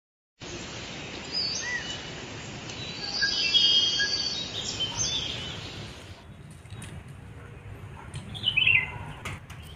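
Birds chirping and calling over a steady outdoor hiss. About two-thirds in, the background changes, and a bird gives a quick run of falling chirps, followed by a few sharp clicks near the end.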